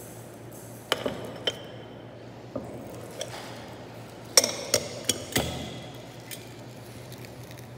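Ceramic bowls clinking and knocking against each other and the countertop as they are picked up, stacked and set down: about ten separate clinks, the loudest a little past halfway.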